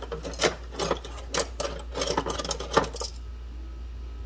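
Metal hand tools and sockets clinking and clattering against each other while being rummaged through in a pile, for about three seconds, then stopping.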